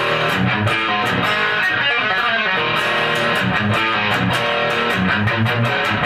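Fernandes Revolver Pro electric guitar played through a Marshall JMP-1 preamp: held lead notes over a rhythm backing with a steady beat.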